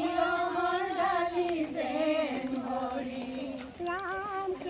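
High-pitched singing voices holding long notes, breaking into quick wavering ornaments near the end.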